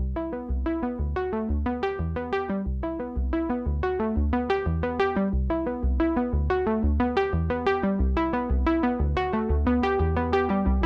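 Electronic synthesizer music with quick, evenly spaced keyboard notes over a steady low beat.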